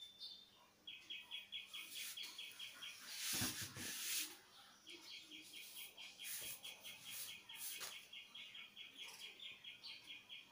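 A steady run of high, evenly spaced chirps, about five a second, stopping for about two seconds and then starting again. A brief rustle about three and a half seconds in is the loudest sound.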